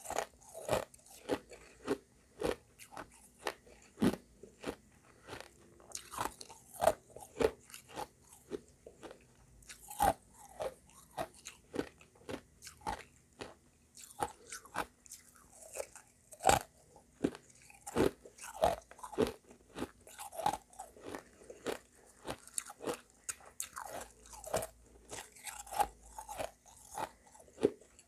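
Close-up crunching and chewing of refrozen shaved ice mixed with crushed ice: hard, sharp crunches a few times a second, with continual chewing between bites.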